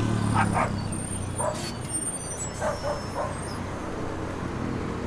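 A steady low engine hum, with a dog barking about six times in the first three seconds or so.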